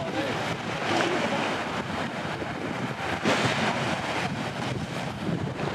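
Sea waves breaking and washing up on a beach, with wind buffeting the microphone.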